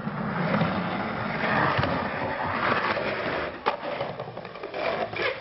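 Skateboard wheels rolling loudly over stone paving, then a sharp clack of the board about three and a half seconds in, with more clacks and knocks near the end.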